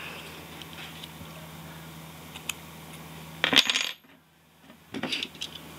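A small hard object, metal by the sound, clattering down onto a hard work surface about three and a half seconds in, loud and ringing briefly. Quieter clicks and knocks of handling follow, over a faint steady hum.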